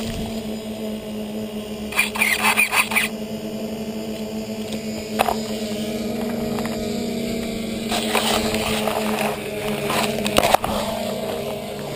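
Radio-controlled toy car's electric motor whining steadily. Several bursts of scraping and rustling come as it runs through leaves: a second long a couple of seconds in, a short one about five seconds in, and longer ones from about eight to ten and a half seconds.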